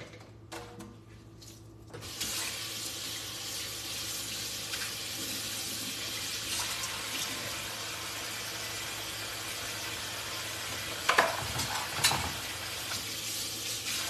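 Water running steadily from a kitchen faucet into the sink, turned on about two seconds in, with two short knocks near the end.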